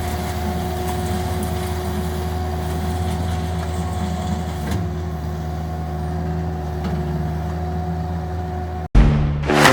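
Vermeer mini skid steer's engine running steadily at an even pitch. Near the end it cuts off abruptly and loud music begins.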